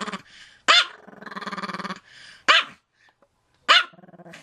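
Small Pomeranian barking at the camera: three short, sharp barks about a second apart. A low, buzzy growl runs between the first and second barks, and a fainter one follows the third.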